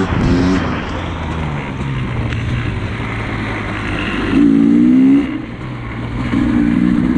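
Dirt bike engine running, with its pitch rising and falling as the throttle is worked, louder about four seconds in and again near the end.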